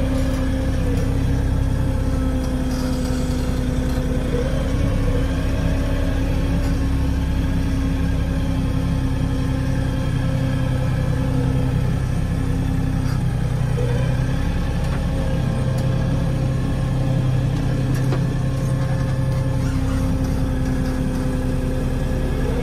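An engine running steadily at an even speed: a constant low hum with a steady tone above it, the pitch wavering slightly now and then.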